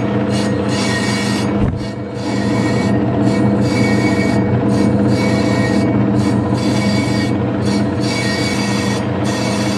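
Metal lathe running at slow speed, its cutting tool turning the inside of the rim of a cast flywheel: a steady hum with several held tones under the sound of the cut. The sound dips briefly about two seconds in, then carries on as before.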